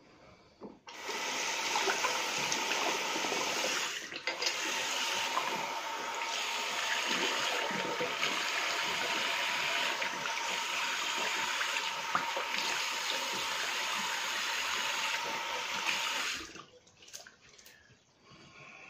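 Tap water running into a bathroom sink for about fifteen seconds with splashing, briefly interrupted about four seconds in, then turned off: rinsing off lather after the first pass of a safety-razor shave.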